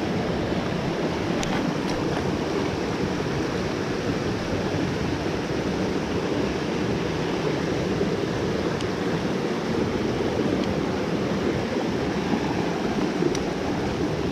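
Creek water rushing steadily over rocks, an even, unbroken hiss, with a few faint ticks.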